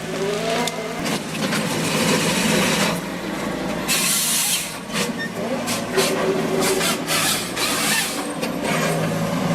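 Forestry harvester at work: its engine runs steadily under a rush of sawing and stripping noise, with many sharp cracks and knocks of wood in the second half.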